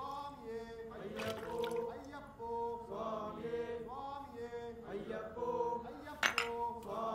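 A group of voices chanting an Ayyappa devotional song together, in long held notes that step from pitch to pitch. There is one sharp click about six seconds in.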